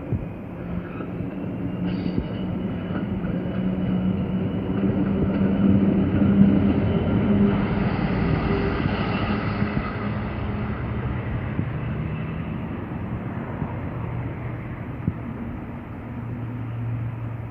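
Class 66 diesel locomotive's two-stroke V12 engine running steadily as it runs light towards and past, its drone building to the loudest point about six to eight seconds in and then fading. A diesel multiple unit passes close by around the peak.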